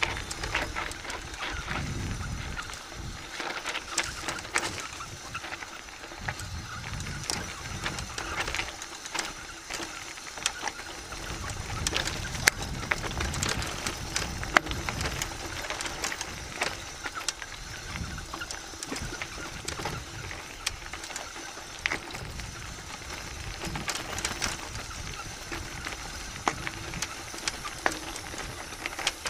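Mountain bike rolling downhill on a loose, stony dirt track: tyres crunching over gravel with frequent sharp clicks and rattles from the bike over the bumps, and gusts of wind buffeting the microphone now and then.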